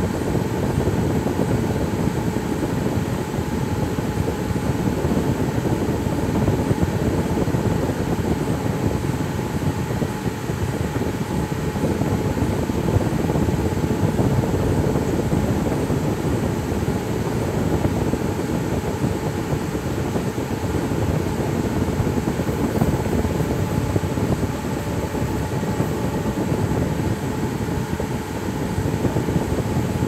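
Steady, unbroken machine-like rumble with a faint steady hum, even in level throughout.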